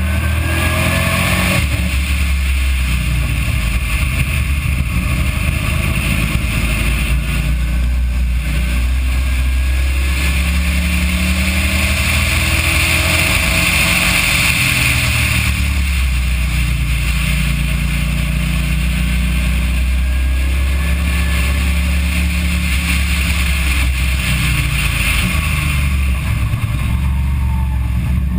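Race car engine at full throttle down a straight, climbing in revs and shifting up a gear, then dropping in revs as the car brakes and downshifts for a corner near the end. The recording is rough and noisy.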